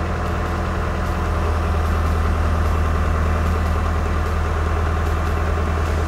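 Bomac TX-375T skid steer loader's engine running steadily with a deep hum while its hydraulics lift the concrete mixer bucket attachment; the sound gets a little louder about a second and a half in.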